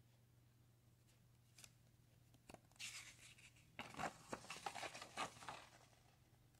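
A folded paper instruction leaflet being unfolded and handled: a couple of light clicks, a short rustle, then a longer run of crisp paper crinkling that dies down shortly before the end.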